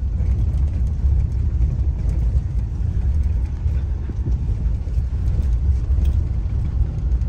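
Steady low rumble of a car in motion, engine and road noise heard from inside the cabin, with faint small ticks and rattles.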